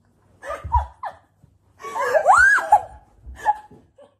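Women's ticklish laughter and high-pitched shrieks from being tickled, in two main bursts with pitch sweeping up and down, with a short low thump under the first.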